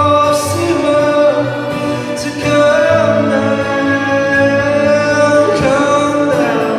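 Live music: a male singer singing a slow song over instrumental accompaniment.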